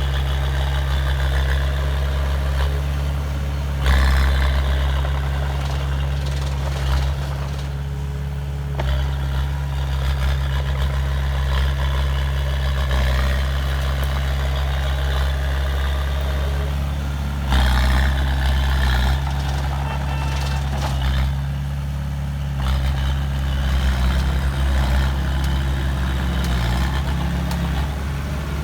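Heavy diesel engine of a truck or earthmover running steadily, with brief louder surges about four seconds in and again around seventeen to nineteen seconds in.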